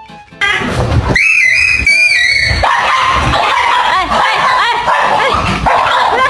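A pet animal giving many short, high-pitched cries in quick succession, rising and falling in pitch.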